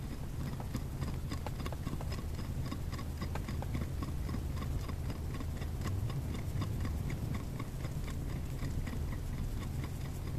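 A steady run of short, pitched clicks at a quick, even pace, over a low steady hum.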